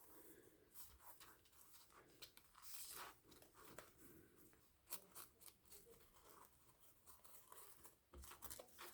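Faint rustling and a few light taps of paper and card being handled, between stretches of near silence.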